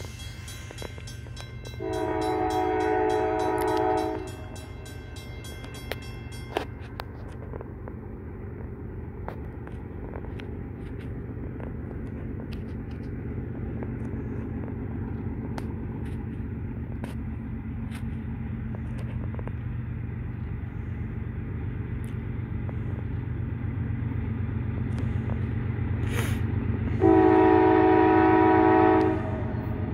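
CSX diesel locomotive's air horn sounding two long chord blasts of about two seconds each, one a couple of seconds in and a louder one near the end. Between them runs the low rumble of the approaching train, growing steadily louder.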